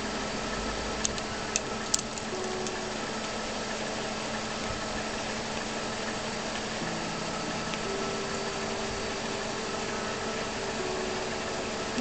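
Steady hum of an idling car engine, with a few sharp clicks about one to two seconds in.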